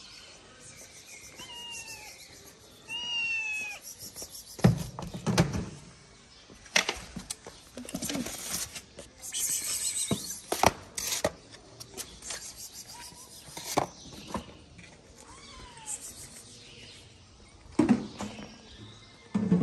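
Hungry cats meowing twice early on, each call bending in pitch, then scattered knocks and clatters as a cooler box and plastic food trays are handled and set down on paving.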